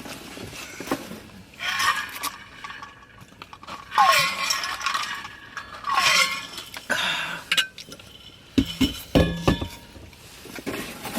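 Ice rattling and clinking in an emptied plastic drink cup, in several short bursts, with a couple of brief falling squeaks as the straw is worked through the lid. A few low thumps near the end.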